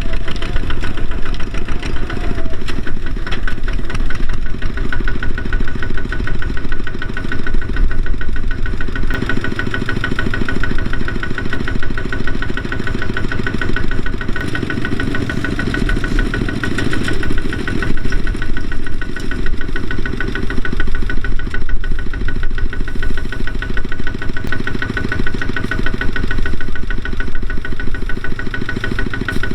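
Kubota ZT120 single-cylinder diesel engine running steadily, with a fast, even clatter.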